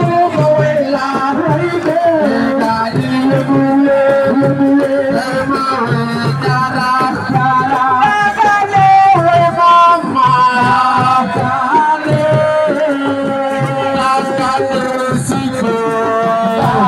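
Assiko music: a singer's voice carried over a steady, evenly repeating drum beat.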